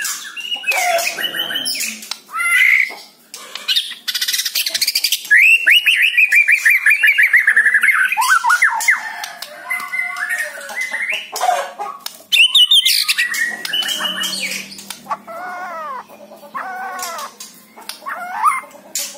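White-rumped shama (murai batu) in full song: a varied stream of loud whistles and harsh, clicking chatter, with a fast run of a dozen or so repeated notes about five seconds in and several falling whistles near the end.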